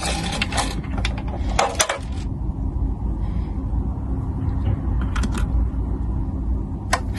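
Handling noises from a plastic humidifier and its packaging: scattered clicks, taps and short rustles, bunched in the first two seconds, again about five seconds in and near the end, over a steady low hum.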